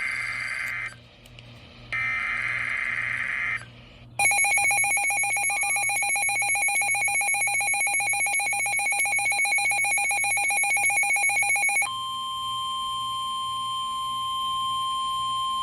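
EAS/SAME digital header bursts, screechy data tones in two bursts. About four seconds in, a harsh, rapidly pulsing alert tone sounds for about eight seconds, and then the steady NOAA Weather Radio warning alarm tone follows. Together they announce an incoming severe thunderstorm warning.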